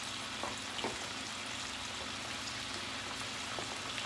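Sliced mushrooms simmering in butter and white wine in a non-stick frying pan: a steady sizzle and bubbling with small scattered pops.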